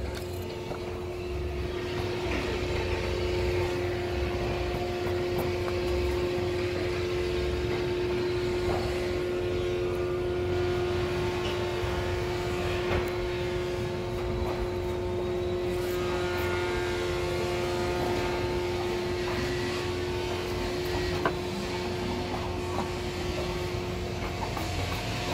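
Steady hum of a running motor, one unchanging tone over a low rumble, with a few faint taps on top.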